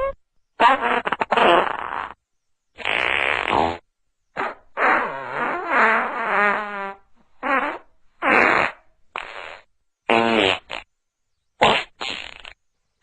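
A string of fart sound effects, about ten separate ones, each cut off by silence. Some are short sputters, some rattly, and a longer one in the middle wobbles and slides in pitch.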